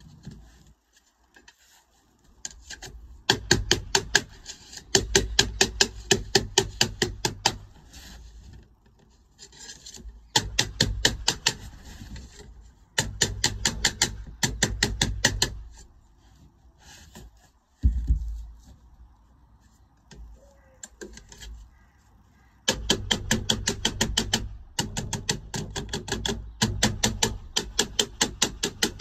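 Quick back-and-forth scraping or rasping strokes of a hand tool on lead sheet, about six or seven strokes a second. They come in runs of a few seconds with short pauses between.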